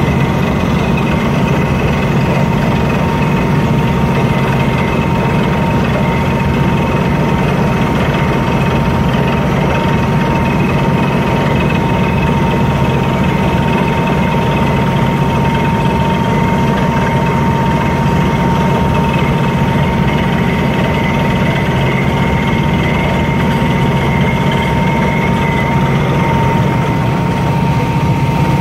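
Borehole drilling rig running steadily while drilling: a loud, even engine drone with a constant high whine over it.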